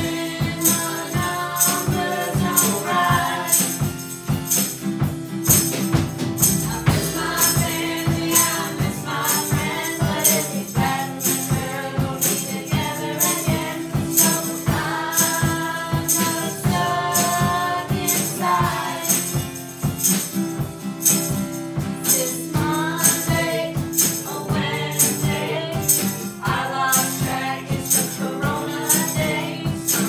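Several voices singing a song together over a strummed acoustic guitar, with a steady high percussive beat.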